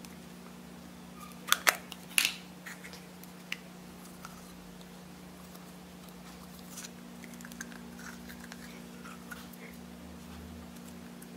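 Sharp plastic clicks and knocks from a Play-Doh tub being handled and opened, loudest about a second and a half in, then quiet squishing as the dough is worked in the fingers. A steady low hum sits underneath.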